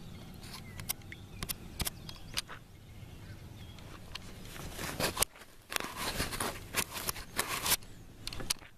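Handling noise from a hat-mounted action camera being gripped and adjusted right at its microphone: scattered clicks and knocks, then a denser run of rustling and bumping about five seconds in.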